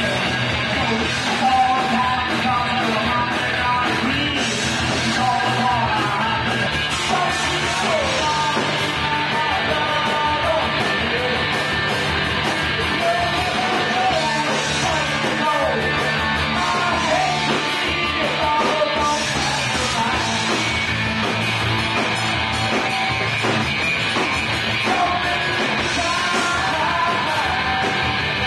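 Live rock band playing, with guitars, drums and a voice singing over them.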